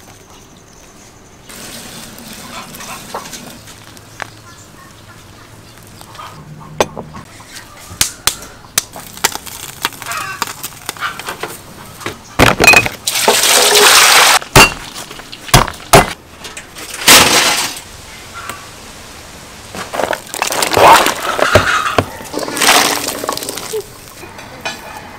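Loud clattering crashes and sharp cracks in several bunches, starting about halfway through after a quiet stretch, from a metal bucket stove being stoked with fuel.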